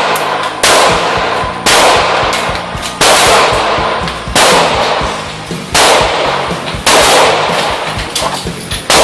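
Caracal 9mm pistol fired in slow, steady single shots, seven of them about one to one and a half seconds apart, each shot trailing off in a long echo.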